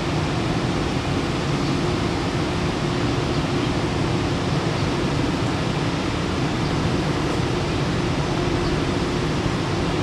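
Steady, unchanging fan-like hum of stationary EH200 and EF64 electric locomotives idling in a depot shed, strongest low in pitch.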